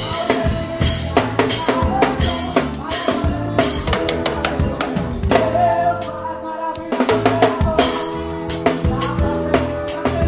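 A band plays a gospel worship song led by a busy drum kit, with kick, snare and cymbal strikes over held keyboard or guitar chords. About six seconds in, the drums drop out for under a second while the chords ring on, then come back in.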